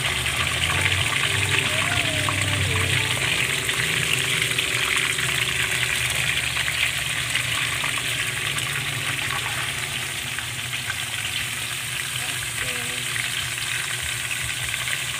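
Whole squid frying in hot oil in a metal wok, with a steady dense sizzle full of fine crackles that eases a little toward the end.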